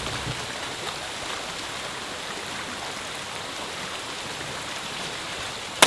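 Steady, even outdoor hiss while a scoped rifle is held aimed. Right at the end a single loud rifle shot cracks out and trails off.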